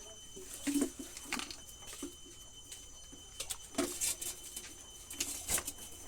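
Scattered light clicks and taps, about a dozen, from handling the parts and wiring of an electric kettle being worked on.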